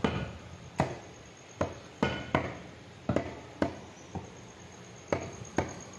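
Meat cleaver chopping beef into pieces on a wooden chopping block: about ten sharp chops, unevenly spaced, roughly one every half second.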